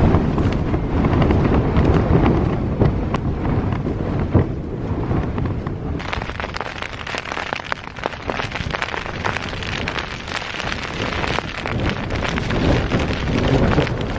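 Strong wind buffeting the tent and microphone in low, rumbling gusts. About six seconds in it changes to heavy rain pattering densely on tent fabric, with the wind still gusting underneath.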